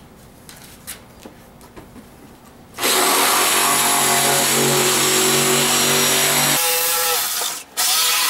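A handheld power tool cutting into the plastic lid of an ice chest. After a few quiet handling clicks it starts suddenly, runs steadily and loud, changes pitch as it bites near the end, and stops briefly before starting again.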